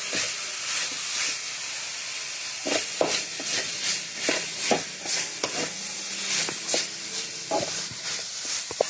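Chicken pieces and sliced onions sizzling steadily in a metal kadai. From about three seconds in, a spatula scrapes and knocks against the pan as the mix is stirred.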